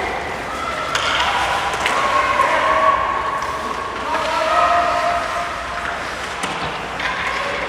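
Ice hockey game sound in a rink: raised voices calling out, with a few sharp knocks of puck or sticks against the boards.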